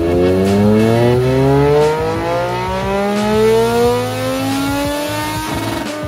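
Sport motorcycle engine on a chassis dynamometer, pulling at full throttle through one gear. Its note rises steadily for about five and a half seconds, then drops away near the end as the run finishes.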